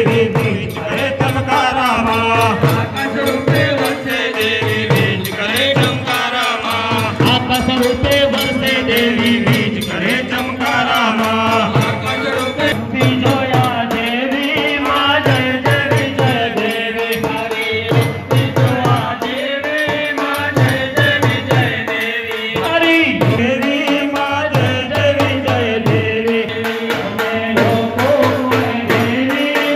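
Gujarati devotional song for the goddess, sung by singers through microphones. A hand drum and rattling percussion keep a steady beat underneath.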